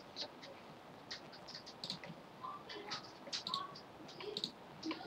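Faint, irregular clicks of a computer keyboard and mouse.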